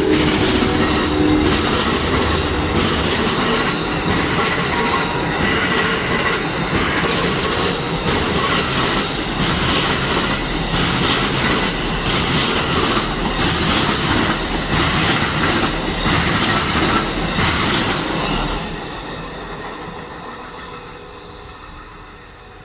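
Amtrak passenger train passing close at speed. The tail of its horn ends in the first second or two, then a loud rush of wheels on rail with repeated clacks, which dies away after about eighteen seconds.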